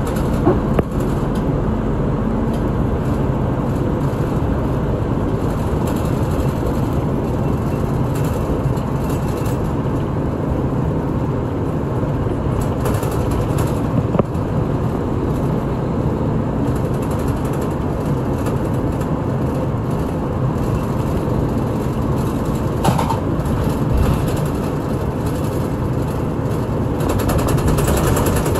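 Shimabara Railway route bus under way, heard from inside the cabin: a steady drone of engine and road noise, with a few brief knocks or rattles.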